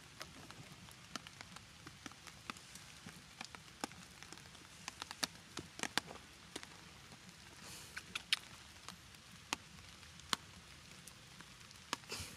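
Raindrops dripping and tapping at irregular intervals, a few sharp taps a second over a faint steady hiss.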